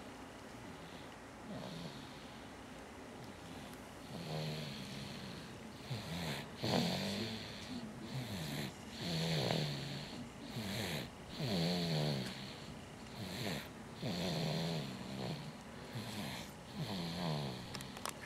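Snoring during sleep: rhythmic, throaty snores coming about once a second, faint at first and louder from about four seconds in.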